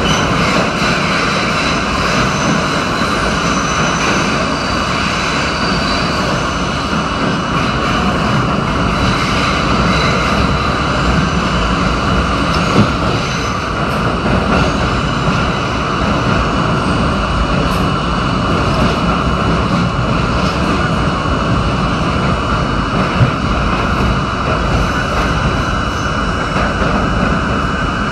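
NYC subway train of R32 cars running at speed through a tunnel, heard from inside the car: a loud, steady roar of wheels on rail and running gear, with two sharp clacks, one about 13 seconds in and another about 10 seconds later.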